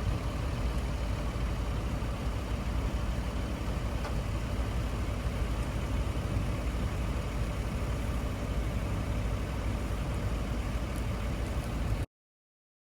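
Fendt 720 tractor running steadily under ploughing load, a continuous low rumble with no change in pitch; it cuts off suddenly near the end.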